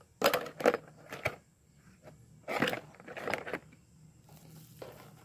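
Carded plastic blister packs of diecast cars being handled and set down: a run of short crinkles and clicks, the loudest in the first second and around the third second.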